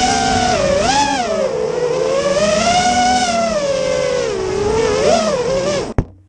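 FPV quadcopter's brushless motors whining, the pitch swooping up and down with throttle, then cutting off abruptly near the end.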